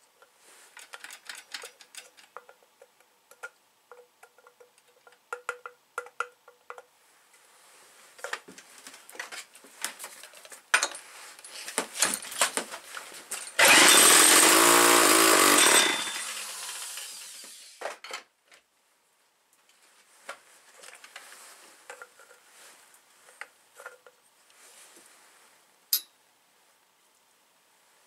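Clicks and clinks of handling at the bench, then, about halfway through, the old McCulloch 250's two-stroke chainsaw engine fires and runs loudly for about two seconds before dying away. The saw had sat unused for 16 years.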